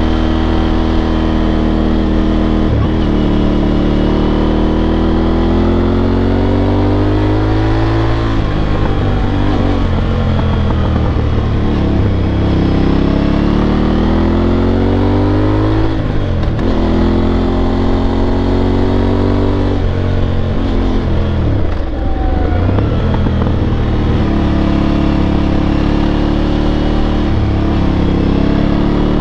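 Aprilia Tuareg 660's parallel-twin engine and exhaust running under the rider's throttle, the revs climbing again and again and dropping sharply a few times: once near the start, about a third of the way in, halfway, and about two-thirds through.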